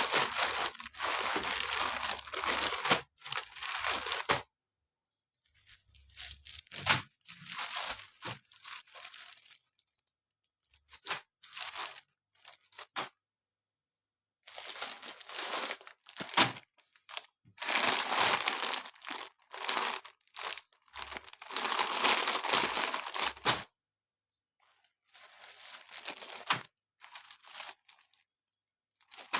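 Packaging being torn open and crinkled by hand: bouts of rustling and tearing that stop and start, with silent pauses between them.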